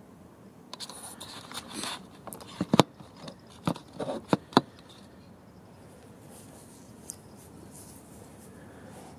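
Handling noise close to the microphone: rustling mixed with several sharp clicks and knocks, dying away about five seconds in.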